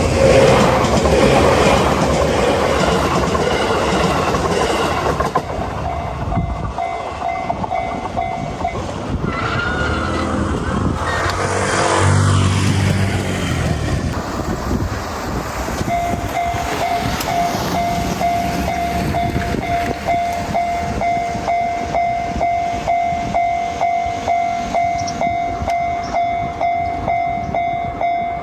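A train passes over a Japanese level crossing, its rail noise loud over the crossing's alarm bell, which stops after a few seconds. A little past halfway the crossing's electronic warning bell starts again and rings steadily, about two dings a second.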